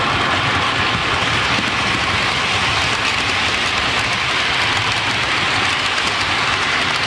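Model trains running through the station on the layout: a steady rushing noise from the locomotives' motors and the wheels on the track, with no let-up as the HST set and the red mail coaches pass.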